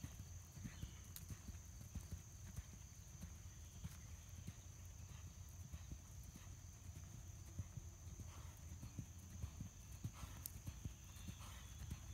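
Faint, dull hoofbeats of a horse cantering on soft sand arena footing.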